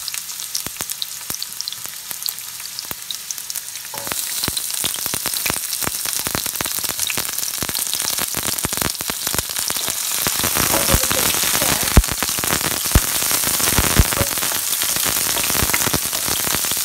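Sliced onions sizzling and crackling in hot olive oil in a nonstick stir-fry pan over low-medium gas, with a steady crackle of small pops. It grows louder about a quarter of the way in and again past halfway, with three sharp cracks about a second apart near the end.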